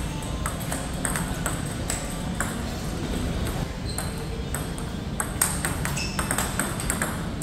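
Table tennis rally: the ball clicks sharply off the paddles and bounces on the table in a quick, regular back-and-forth.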